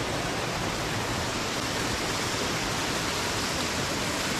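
Steady rush of falling water from a waterfall, an even noise that holds constant throughout.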